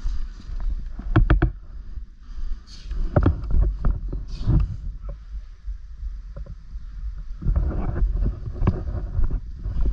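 Irregular knocks and rustling from an airsoft player on the move, in clusters with gaps between them.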